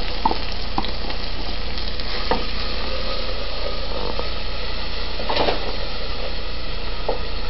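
Chopped onion, garlic and green bell pepper sizzling in hot oil in a pan while being stirred, with occasional light clicks. The sizzle holds steady throughout, with a small flurry of clicks about five seconds in.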